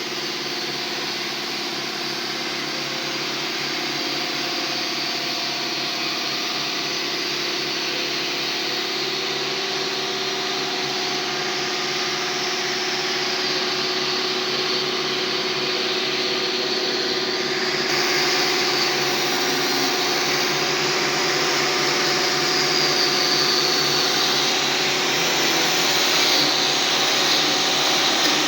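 Electric power tool running steadily under load, a continuous whirring grinding noise that gets louder and brighter about eighteen seconds in, as the work on the rusty iron begins.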